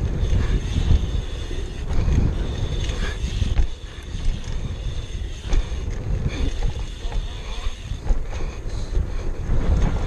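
Wind buffeting a helmet-mounted camera's microphone while a BMX bike rolls over a packed-dirt track, a rough low rumble with scattered clicks and rattles. The noise dips briefly about four seconds in.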